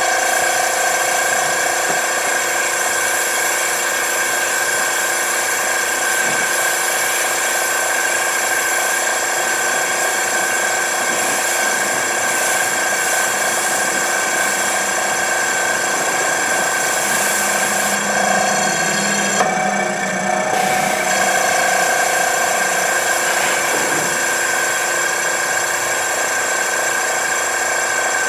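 Eco Rinse machine, a compact rinse pump made with AR North America, running with a steady mechanical whine under the hiss of its spray wand wetting down the car. The spray hiss cuts out for about a second roughly two-thirds of the way through, then resumes.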